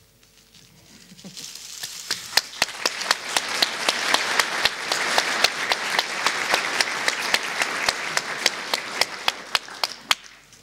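Audience applauding: the clapping starts about a second in, swells to a full round with a few sharp individual claps standing out, and stops fairly suddenly near the end.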